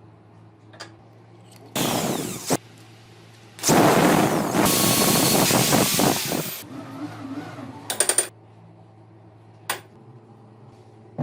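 A power tool working on metal in bursts: a short burst about two seconds in, then a loud noisy run of about three seconds, followed by a quick run of clicks and one more click later on, over a low hum.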